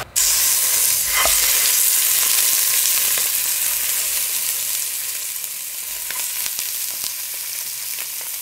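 Raw chicken drumsticks sizzling loudly as they are laid into a hot pot to sear. The sizzle starts abruptly, flares briefly about a second in, then eases slightly.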